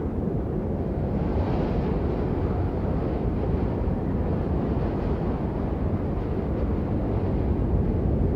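Blizzard wind: a steady low rush of storm wind, with a gust swelling briefly about one to two seconds in.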